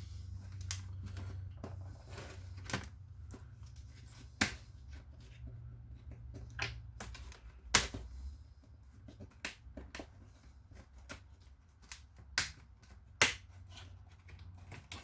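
Plastic clips of a laptop's LCD screen bezel snapping loose one after another as the bezel is pried off, a string of sharp irregular clicks and snaps. Hearing them is the sign that the bezel is coming free.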